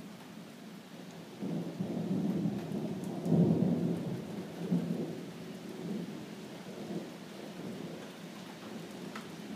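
Rolling thunder over steady rain: the rumble starts about a second and a half in, is loudest a couple of seconds later and dies away over the next few seconds, while the rain keeps on throughout.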